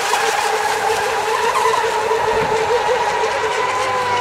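Several radio-controlled racing boats running flat out together, their small engines making a steady high-pitched whine that warbles as they race around the course. Near the end a low steady hum joins in.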